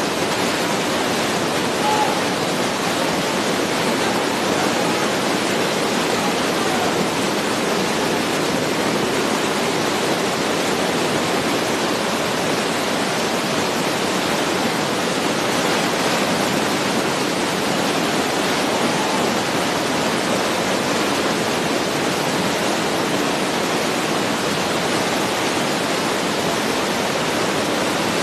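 Steady, even rushing noise with no distinct events, level and unbroken throughout.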